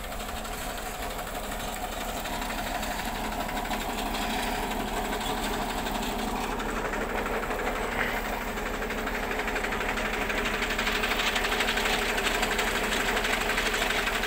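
Massey Ferguson 245 tractor's diesel engine running steadily under load, belt-driving an irrigation water pump, with a hiss that grows louder in the second half.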